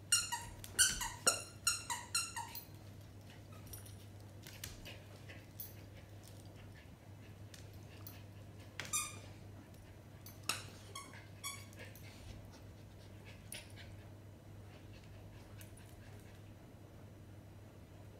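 Schipperke puppy play-wrestling with a larger dog, giving a quick run of about seven short, high-pitched yips that fall in pitch in the first couple of seconds, then a few more around the middle.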